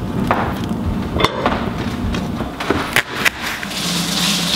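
Kitchen clatter: a handful of sharp, irregular knocks of cookware and utensils as butter goes into a stainless steel saucepan on a gas stove.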